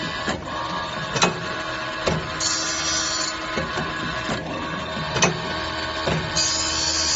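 Automatic saw-blade tooth grinding machine running through its cycle over a steady motor hum: sharp knocks every second or so, and a high hiss lasting about a second that comes back about every four seconds, twice here.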